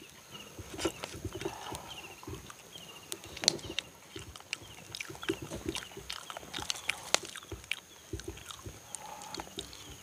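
Close-up mouth sounds of people eating roasted sweet potato and taro by hand: irregular wet chewing, lip-smacking and clicks, with a faint steady high tone behind.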